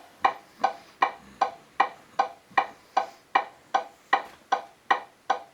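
Hazard-warning flasher ticking played by the Tamiya Scania R470 model's multi-function sound unit: an even run of sharp clicks, about two and a half a second, each with a short ringing tone.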